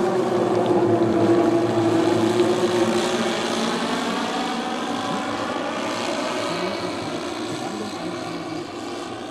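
The twelve four-stroke O.S. 10 cc model engines of a large RC Dornier Do X flying boat running together in flight, a layered engine drone. Its pitch shifts as the model passes overhead, and the sound grows steadily fainter as it flies off.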